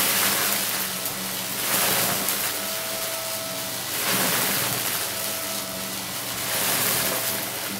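Upright vacuum cleaner running with a steady motor hum while it sucks up a crunchy scatter of glitter, sequins and small beads. The hissing rattle of debris swells and fades about every two seconds as the head is pushed back and forth.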